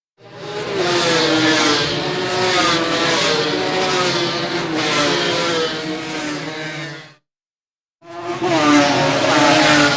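Motorcycle engine running hard at high revs, its pitch wavering, cutting off after about seven seconds. After a second of silence another motorcycle engine recording starts and revs up.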